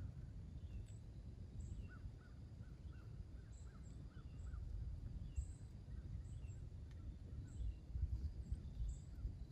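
Small birds calling in the woods: repeated short, thin, high chirps throughout, with a quick run of about seven notes between two and four and a half seconds in. There is a low, uneven rumble underneath.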